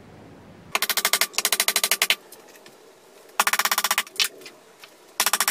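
Hammer striking small nails into the thin wooden boards of a kit planter, the footage sped up so the blows come in three rapid runs of about a dozen strikes a second.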